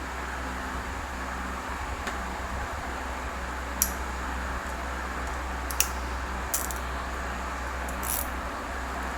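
A fan running with a steady whirring hum, with a few short sharp clicks over it.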